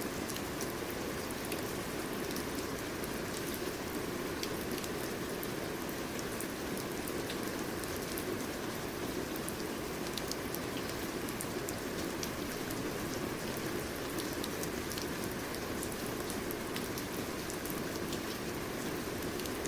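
Steady rain falling on a surface, a continuous hiss with many small drop ticks scattered through it.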